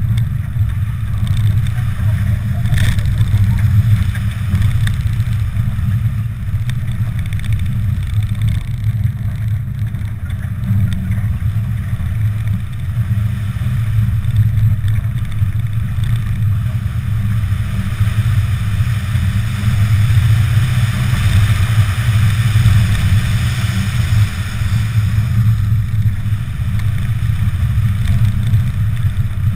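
Car engine running hard under load during a rallycross run on dirt, heard from inside the cabin as a steady low drone, with a hiss of tyres and loose dirt that grows louder around the middle.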